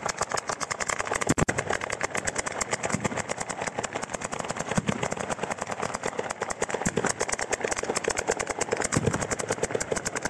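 Ground-level firework barrage: a long unbroken chain of firecrackers going off as a fast crackling rattle of many reports a second, with a few heavier bangs mixed in.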